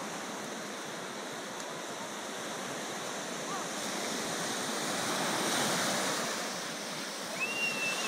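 Ocean surf washing up on a sandy beach, a steady rush that swells about five seconds in. A short high-pitched squeal near the end.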